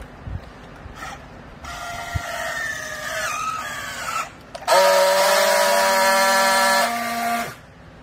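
Battery-powered handheld strapping tool tensioning a plastic strap around a bale: its motor whine drops in pitch as the strap pulls tight. Then comes a louder steady buzz for nearly three seconds as the tool friction-welds the strap, and it cuts off suddenly.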